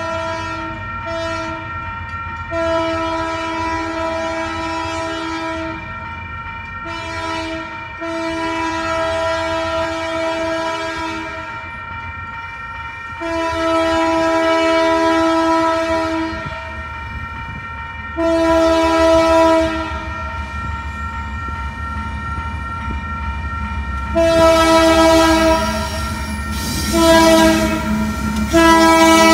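Union Pacific C44ACM locomotive's fouled Nathan K3HA horn blowing for a grade crossing in about ten long and short blasts. It sounds out of tune because one chime is fouled. A crossing bell rings steadily between the blasts, and the locomotive's rumble grows as it nears.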